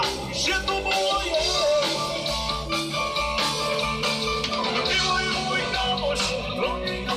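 Live rock band playing: electric guitar lines with a few bent notes over bass guitar, drums and keyboards, with no singing clearly heard.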